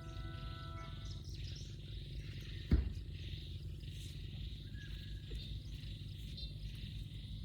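Held music notes end about a second in, leaving a steady high chirring of insects over a low hum, with a single sharp thump near the three-second mark.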